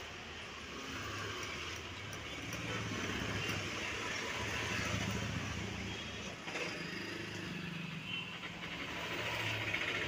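Road vehicle engine running nearby, a steady low hum that grows louder about three seconds in.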